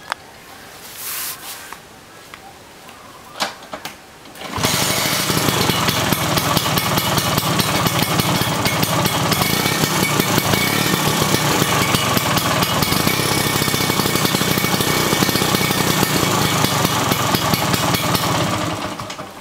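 Vespa Sprint Veloce 150 two-stroke single-cylinder engine. It catches about four and a half seconds in, after a few lighter knocks, then runs steadily and dies away near the end. It is being run to light the tail lamp, whose bulb keeps burning out from high charging voltage at high revs.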